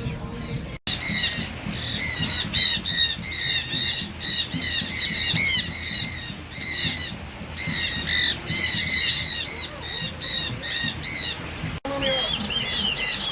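A flock of birds squawking: many short, sharp calls repeating rapidly and overlapping. The sound drops out briefly about a second in and again near the end, where different gliding calls take over.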